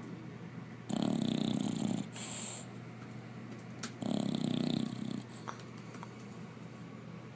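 English bulldog puppy snoring in deep sleep: two snores, each about a second long and about three seconds apart.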